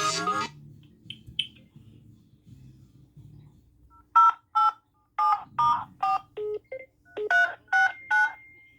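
A phone ringtone tune cuts off about half a second in. After a pause, about a dozen dual-tone keypad beeps follow in quick succession from a phone's dial pad: touch-tone (DTMF) dialing of a number.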